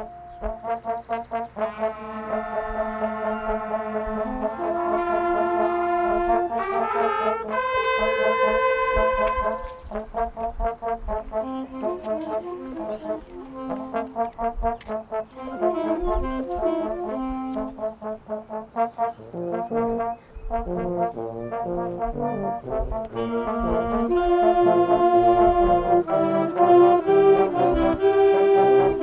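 High school concert band playing under a conductor, with saxophones, trumpets and low brass sounding sustained chords and moving melodic lines. The band grows louder about five seconds before the end.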